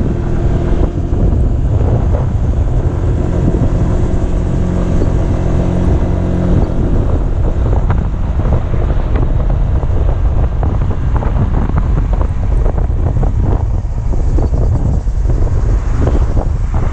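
Kymco Xciting 250i scooter's single-cylinder engine running at a steady cruise, mixed with heavy wind buffeting on the microphone. The engine's steady hum is clearest in the first several seconds. After that the wind noise turns rougher and gustier.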